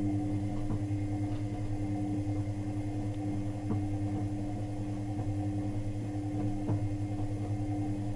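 Electrolux washing machine drum turning, its motor humming steadily, with a short knock repeating about once a second. The knock is a new fault that the owner suspects comes from the shock absorbers or the drum bearings.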